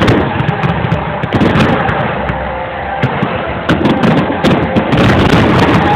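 Barrage of aerial firework shells bursting in rapid succession: many sharp, overlapping bangs over a continuous rumble.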